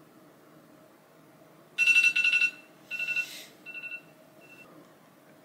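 Smartphone wake-up alarm beeping: a high two-pitch beep in rapid pulses starting about two seconds in, then in shorter, fainter bursts until it stops about four and a half seconds in. A brief rustle comes with the second burst.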